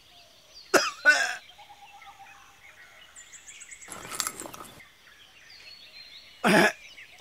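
A man sobbing and coughing in short outbursts, a pair about a second in and another near the end, with a brief scratchy noise about four seconds in. Birds chirp faintly in the background.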